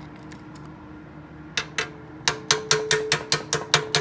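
A hand tool rapidly striking a freshly welded sheet-steel patch on a rusted steel engine valve cover, each blow ringing metallically. The strikes start about a second and a half in and settle into about five a second, knocking on the weld to see whether the patch holds.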